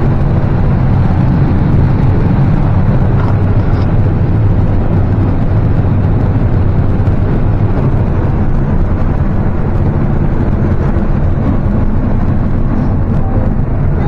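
Combine harvester running steadily while harvesting corn, heard from inside the cab: an even, loud, low drone of the engine and threshing machinery.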